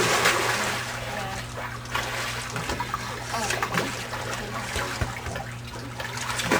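Steady running or splashing water, with faint voices in the background.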